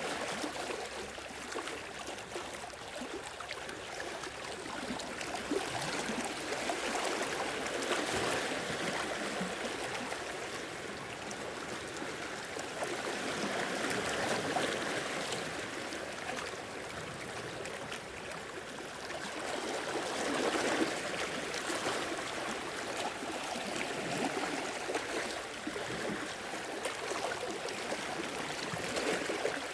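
Sea waves washing in and draining back, a steady rush that swells every six or seven seconds.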